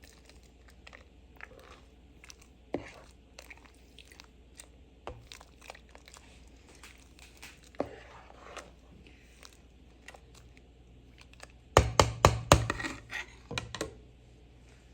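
A cooking utensil tapping and scraping in a pot of soup, with light scattered clicks. A quick run of loud knocks comes about twelve seconds in.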